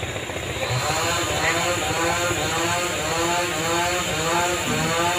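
A small engine running, its pitch rising and falling in quick repeated swells, about one and a half a second.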